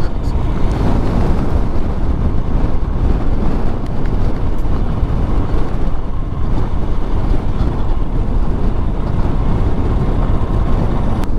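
Royal Enfield Himalayan's single-cylinder engine running at steady speed over a gravel track, mixed with tyre rumble and wind buffeting on the microphone.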